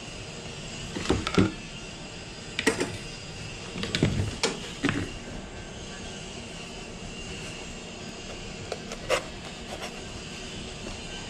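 Tools and containers being handled on a workbench: a few sharp clicks and knocks, clustered in the first half and once more near the end, over a steady mechanical hum.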